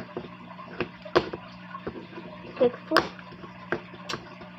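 Wooden-deck fingerboard with bearing wheels being flicked and landing on a plastic-covered tabletop during kickflip attempts: a string of sharp, irregular clacks, about seven in all, over a steady low hum.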